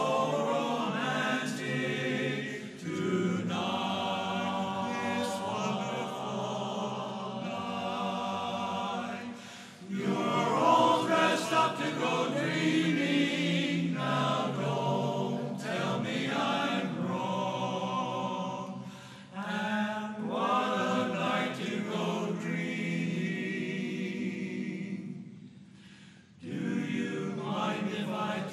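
Men's barbershop chorus singing a cappella in close harmony, with a short break between phrases near the end.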